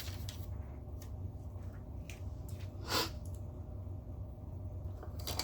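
Steady low room hum with a few faint scattered clicks, and one short hiss about three seconds in.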